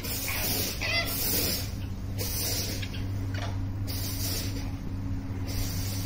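Outdoor garden ambience: a high hiss that swells and fades in waves about a second long over a steady low hum, with a few short bird chirps about a second in.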